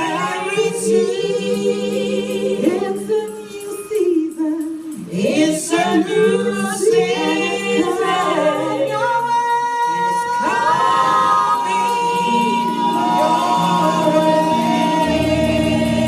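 Church choir singing a gospel song, the voices moving through the melody and then holding long notes in the second half.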